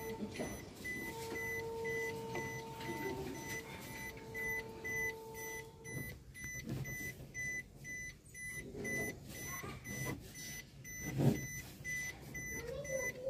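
Maruti Suzuki Wagon R's warning chime beeping over and over at an even rate, with the driver's door open and the ignition on. A steady lower tone runs under it and stops about six seconds in, and there are a few soft knocks near the end.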